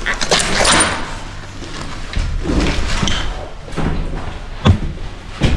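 Scuffing and rustling with scattered knocks, then two sharp thuds near the end.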